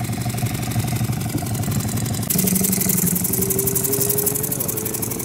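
Outboard motor of an inflatable boat running steadily at low trolling speed. About two seconds in, the sound gets louder with a strong hiss of water and air, and the motor's tone slowly rises in pitch.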